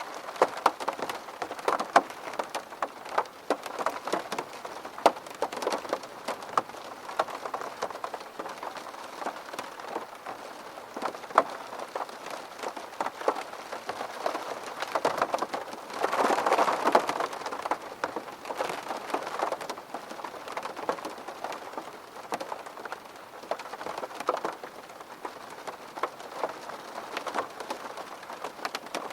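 Steady rain with many separate drops striking a hard surface, growing heavier for a couple of seconds about halfway through.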